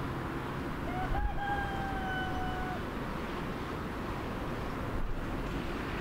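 A rooster crows once, about a second in: a couple of short rising notes, then a long held note lasting nearly two seconds. Under it is a steady low rumble.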